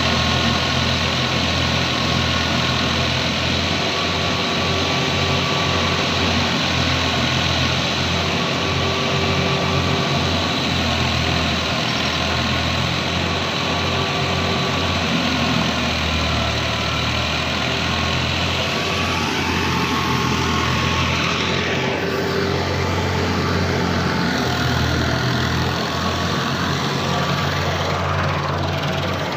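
Heavy engine running steadily with a low hum, with a shift in pitch a little past the middle.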